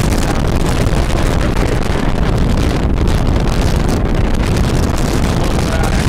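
Strong wind buffeting the microphone: a loud, steady noise heaviest in the low end, without a break.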